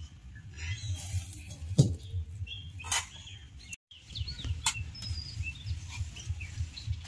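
Pot of chicken curry bubbling at a boil, a low uneven rumble, with small birds chirping in the background. A loud short falling squeak comes about two seconds in, and the sound cuts out for a moment just before the middle.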